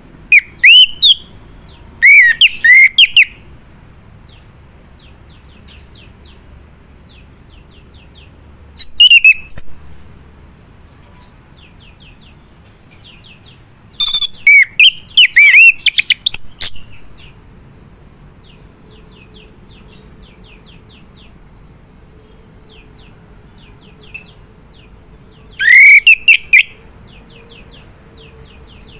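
Male chestnut-capped thrush (anis kembang) singing in five loud bursts of rich, sweeping whistled phrases, each about a second long. Between the bursts run fainter rapid series of short, evenly spaced chips.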